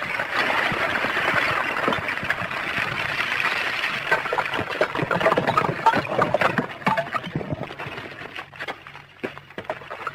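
Dense, irregular crackling and clinking of rock blocks tumbling and grinding at the front of an advancing blocky lava flow, starting abruptly and thinning out near the end.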